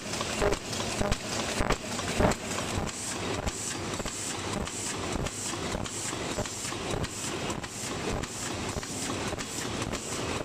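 Paper cup forming machine running at speed, its indexing turret and forming stations clattering in a steady, even rhythm as it turns out cups.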